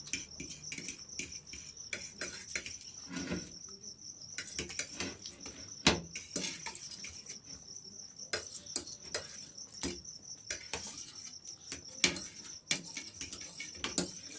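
Crickets chirring steadily in the background, with scattered sharp clicks and taps of eating from plates, the loudest about 6 and 10 seconds in.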